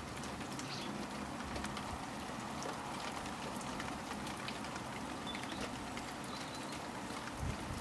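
Steady patter of light rain, with many small drops ticking on surfaces. There is one dull low thump near the end.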